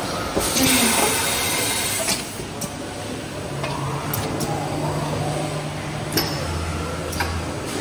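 BACCI DoubleJet CNC machining centre running. There is a loud burst of hiss about half a second in that lasts over a second, then sharp clicks from its pneumatic clamps and valves every second or two, over low humming as the axis motors move.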